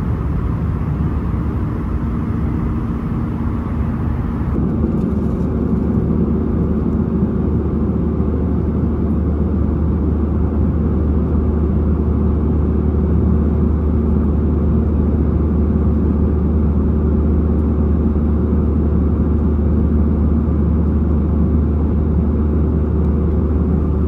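Steady cabin drone of a jet airliner in flight: a deep engine hum under airflow rush. About four and a half seconds in the sound changes abruptly to a deeper, duller drone with less hiss.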